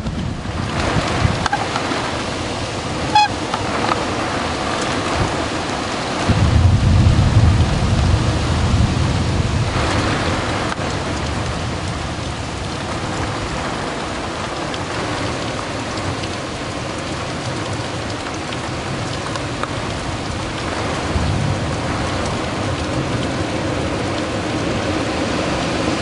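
Heavy wind-driven rain and strong wind of a severe thunderstorm: a steady, loud rush of noise. About six seconds in, a low rumble swells for a few seconds, and a fainter one comes near the end.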